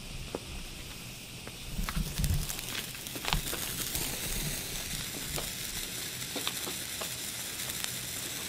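Handheld fireworks hissing steadily, with scattered sharp crackles of sparks. The hiss grows fuller about two seconds in.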